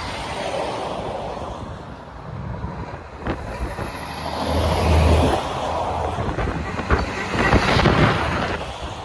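Articulated lorries driving past close by, with engine rumble and tyre noise that swell as each truck passes; a Scania tractor unit pulling a refrigerated trailer goes by near the end.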